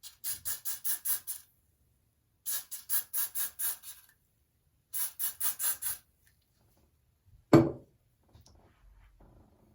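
Lace spray being pumped from a spray bottle in three quick runs of hissing sprays, about six a second. Near the end comes a single sharp thump, the loudest sound, followed by faint rustling.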